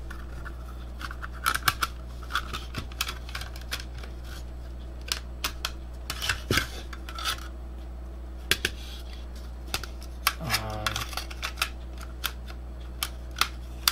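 Irregular light clicks and metal clinks of a slim DVD drive's sheet-metal casing being handled and fitted together by hand, over a steady low electrical hum.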